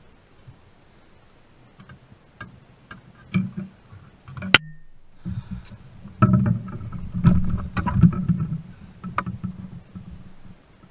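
Scattered clicks and knocks, then a denser run of low thumps against a small boat's hull as an angler handles a bass and stands up in the boat. The sound cuts out for a moment about halfway.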